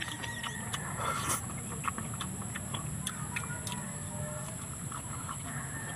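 Close-up eating sounds: scattered soft clicks and smacks of chewing, and fingers picking at rice and vegetables.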